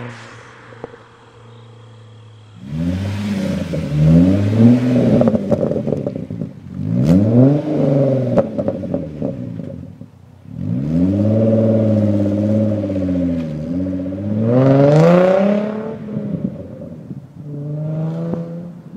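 Hyundai Genesis Coupe 3.8 V6 with a single HKS muffler, parked and free-revved. It idles quietly for a couple of seconds, then the throttle is blipped about five times, each rev rising and falling in pitch, and the middle one is held for about three seconds.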